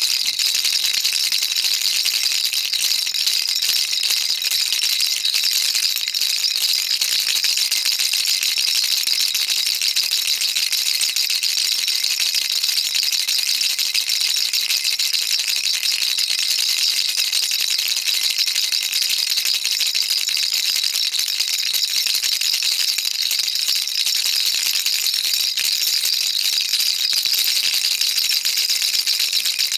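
Baby rattle shaken continuously, a dense, steady, high-pitched rattling of small beads with no pauses.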